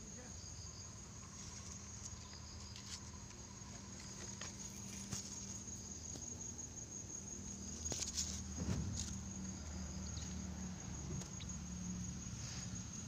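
Crickets trilling steadily in one high, even tone, with a few knocks and rustles about eight to nine seconds in.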